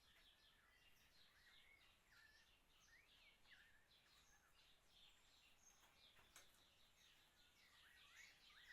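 Near silence with faint birds chirping and whistling in many short notes, and one faint click about six seconds in.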